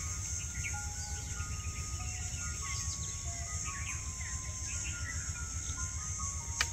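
Short, scattered bird chirps over a steady high hiss, with a slow melody of held notes underneath. A single sharp click near the end.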